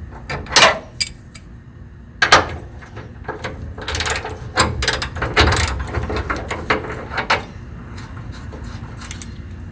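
Ratchet wrench with a 21 mm socket clicking in irregular bursts of strokes as rear bumper mounting bolts are loosened.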